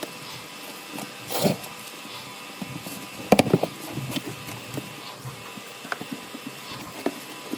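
Scattered work noises: a short rustle about a second and a half in, a quick run of sharp knocks a little past three seconds, and a few single clicks after that.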